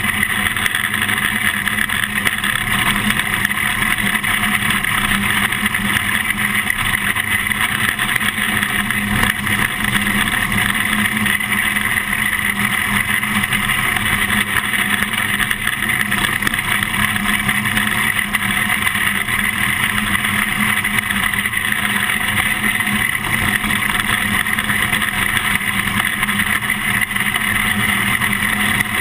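Winged micro sprint car's engine running hard and steady under racing on a dirt oval, heard from inside the cockpit, with no let-up or clear revving changes.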